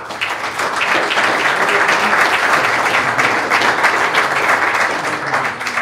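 Audience applauding, a steady crowd of clapping hands that eases slightly near the end.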